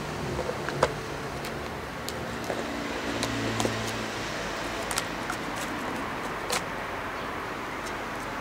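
Empty plastic drink bottle clicking and crackling in irregular sharp bursts as a Shiba Inu bites, carries and paws it, over steady background noise.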